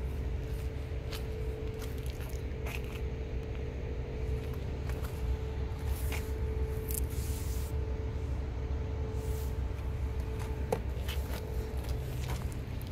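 BMW N47 2.0-litre four-cylinder turbodiesel idling steadily: a low drone with a steady whine above it. Scattered light clicks and scuffs from handling sound over it.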